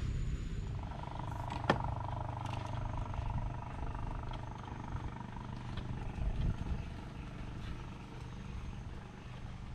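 An engine running steadily with a low hum, and one sharp click nearly two seconds in.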